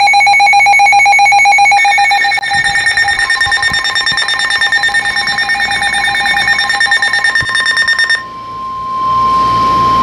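Emergency Alert System attention signal for a flash flood warning: a loud electronic alarm of several held tones with a fast, even pulse. About eight seconds in it gives way to a single steady tone.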